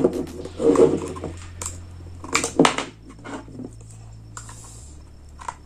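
Plastic clicks, knocks and scraping as a Redmi Band fitness tracker's capsule is handled and pushed into a power bank's USB port. The sharpest knocks come in the first three seconds, followed by quieter scraping.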